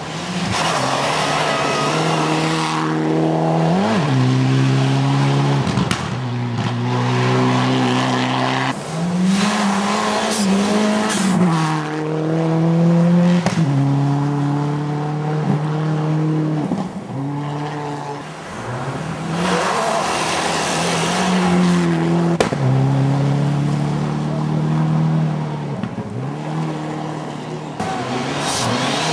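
Rally car engines at full throttle, the engine note climbing and dropping sharply again and again as the cars shift gears on a snowy special stage.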